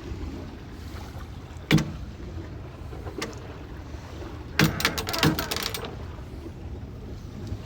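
Sailing yacht under sail with its engine out of gear: a steady low rush of wind and water, broken by a sharp knock about two seconds in and a quick run of clicks and knocks around five seconds in.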